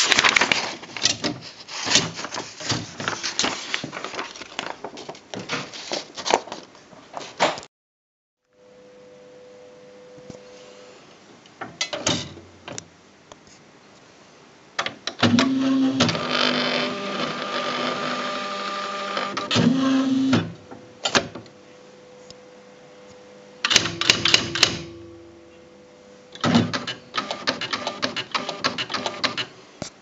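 Smith Corona SD685 electronic typewriter: paper rustling and clicking as a sheet is handled, then the machine's motor running for about five seconds with a steady whir. Near the end come short runs of rapid printing clicks as it types.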